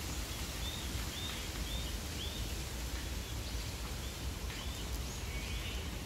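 Birds giving a series of short chirps over a steady outdoor background hiss.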